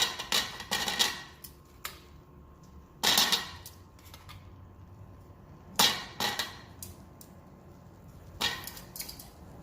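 Metal kitchen utensil knocking and scraping against a stainless-steel skillet, with scattered sharp clinks, the loudest about three and six seconds in, as garlic and ginger pieces are picked out of the pan.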